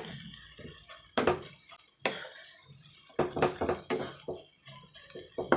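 A wooden spatula knocking and scraping against a nonstick pan as cooked gongura leaves are stirred and chopped down, in irregular strokes with a louder knock about a second in and another about two seconds in.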